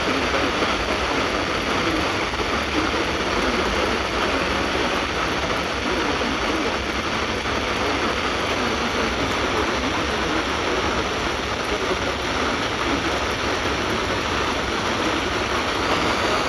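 Steady hiss of static on a received emergency-alert broadcast, even in level throughout, where the alert's voice has dropped out.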